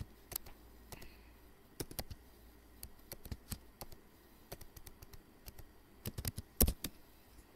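Typing on a computer keyboard: scattered single keystrokes, then a quick run of several louder ones about six seconds in.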